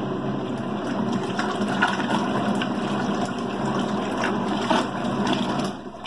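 Praxis Petit 1.2 kg mini washing machine agitating a rinse load, its motor running and the water churning in the open tub. The sound stops abruptly near the end.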